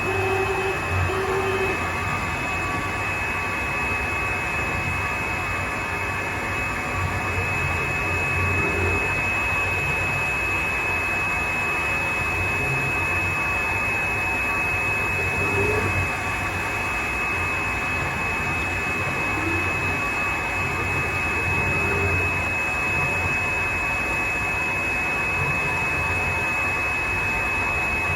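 Continuous cutting machine running steadily: a constant high-pitched whine over an even mechanical hum.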